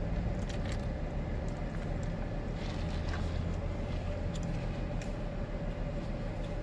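Steady low vehicle rumble with a constant mid-pitched hum above it, swelling a little in the middle, and a few faint light clicks.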